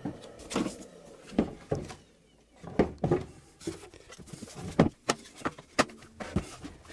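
Irregular knocks, taps and clatter of hands working on an MDF cabinet while fitting a dust extractor and feeding its hose and cable through, with a short quiet pause about two seconds in.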